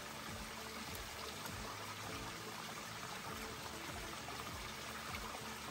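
Steady, even rush of running water from a stream.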